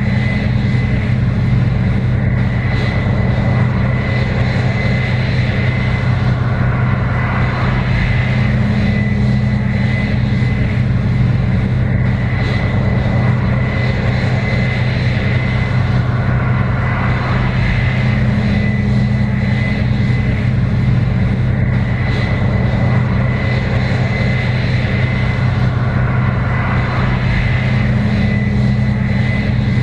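Case IH 7120 Axial-Flow combine running steadily while harvesting corn: a constant diesel engine drone with a steady high whine over it, and a deeper hum that swells and fades every eight to ten seconds.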